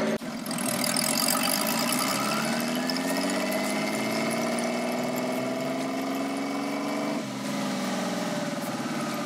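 Nissan RB20DET straight-six with a big turbo, its revs climbing slowly, with the turbo whistling and rising in pitch along with the engine. About seven seconds in, the revs drop suddenly and the engine runs on steadily.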